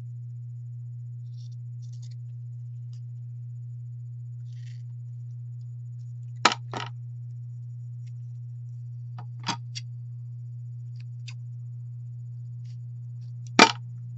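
Scissors trimming a small piece of felt: a few scattered sharp snips and clicks, the loudest near the end, over a steady low hum.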